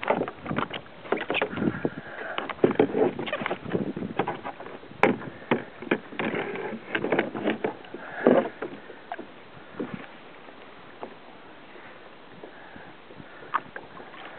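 Water splashing and slapping irregularly against a plastic kayak hull, in quick uneven bursts, busier for the first nine seconds or so and then quieter and sparser.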